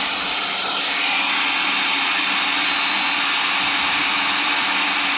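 Industrial heat gun blowing steadily on its second setting, powered from an inverter, with a steady low hum underneath. The airflow hiss grows a little stronger about a second in.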